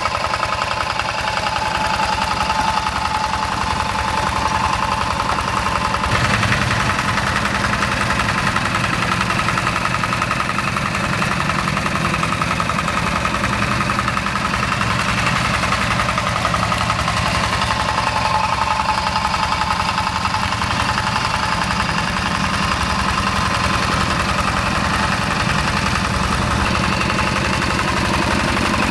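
Yanmar TF85 single-cylinder diesel engine on a two-wheel hand tractor running steadily as the tractor pulls its cage wheels through paddy mud.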